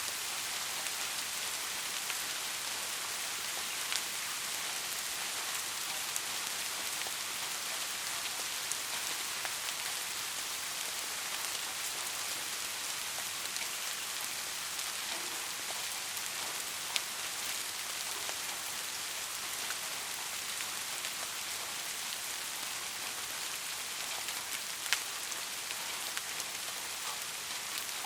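Soft steady rain falling, an even hiss with a few louder single drops ticking now and then.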